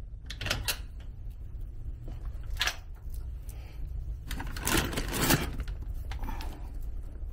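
Brown paper wrapping on a parcel crackling and rustling as it is grabbed and lifted, loudest for about a second from four and a half seconds in. A few sharp clicks come near the start, over a low rumble of handling noise.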